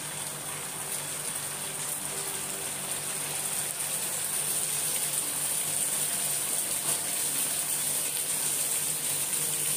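Tomato sauce and oil sizzling in a frying pan, a steady hiss with faint pops that slowly grows louder.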